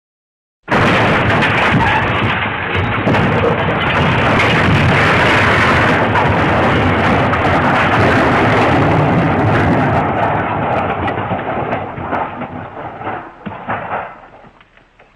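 Sound effect of a long, loud crashing rumble that starts abruptly, holds steady for about eleven seconds, then breaks up and dies away near the end.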